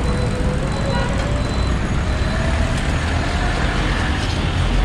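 Busy road traffic: a steady rumble of passing vehicles, with one engine rising slowly in pitch.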